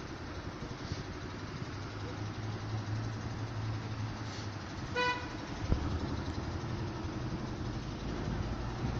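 A car engine running steadily, with one short car-horn beep about five seconds in and a thump just after it.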